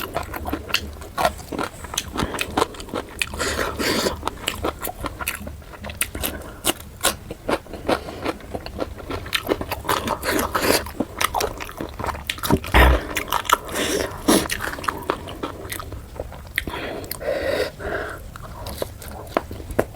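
Close-miked eating sounds: a person biting and chewing puri with chicken curry, a dense run of small wet mouth clicks and smacks. One heavier thump comes about two-thirds of the way through.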